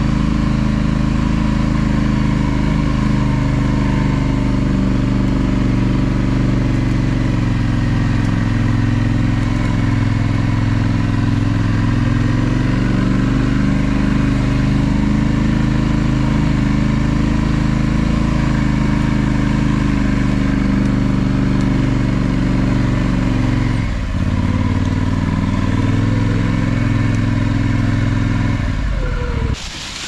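ATV (four-wheeler) engine running steadily while being ridden, shut off just before the end.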